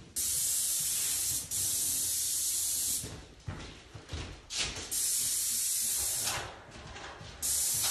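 Airless paint spray gun hissing in three trigger-pulled bursts, starting and stopping sharply: a long one of about three seconds with a brief break partway, a shorter one in the middle, and another starting near the end. The gun is spot-spraying missed patches (holidays) in a door's first coat of trim enamel.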